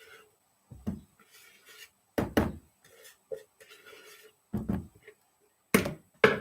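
Several irregular knocks against a mixing bowl, with faint scraping between them, as eggs are added and worked into the mixture.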